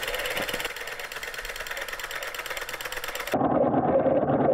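A multi-cylinder 3D-printed solenoid engine runs fast, driving a model boat's propeller. Its solenoids make a rapid, even clatter. A little over three seconds in, the same clatter turns abruptly louder and more muffled.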